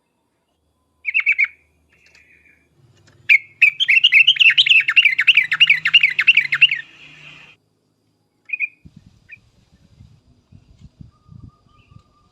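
Yellow-vented bulbul (trucukan) singing: a short bubbly phrase about a second in, then a long rapid run of repeated warbling notes, about five a second, lasting some three seconds, and one more short note later. Faint low knocks follow near the end.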